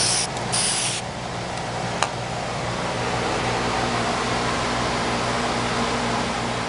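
Aerosol can of chalkboard spray paint hissing in a few short bursts, stopping about a second in. After that a steady low hum and hiss carry on, with a single sharp click about two seconds in.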